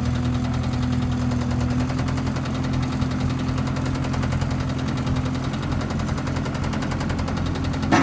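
Tractor backhoe loader's engine running steadily with a rapid, regular knocking pulse, an engine noise that the seller thinks could be an exhaust leak, fuel knock or a bad injector. A single sharp knock sounds near the end.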